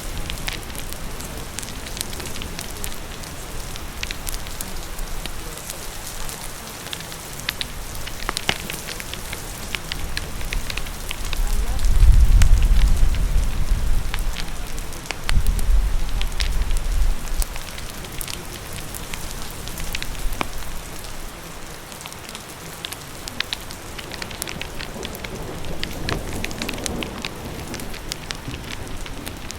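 Steady rain hissing with a fire crackling over it: many sharp pops and snaps. About twelve seconds in a low rumble swells, eases, swells again and fades out a few seconds later.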